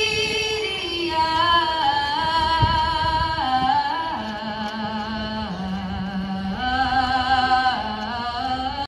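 Slow vocal music: long held, wavering notes that step up and down in pitch over a lower sustained line.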